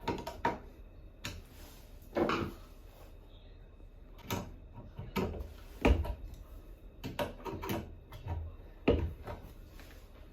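Irregular knocks and clicks, about a dozen separate strikes at uneven spacing, some with a brief ring: tools and faucet fittings being handled during bathroom faucet replacement work.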